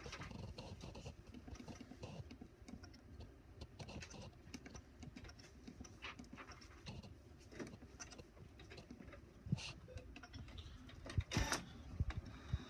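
Faint, irregular clicking and rustling, with a couple of sharper knocks in the last few seconds.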